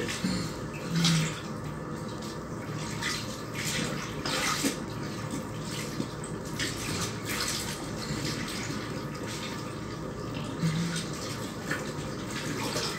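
Clothes being hand-washed in a plastic basin of water: irregular wet sloshing, splashing and swishing as the fabric is rubbed and squeezed.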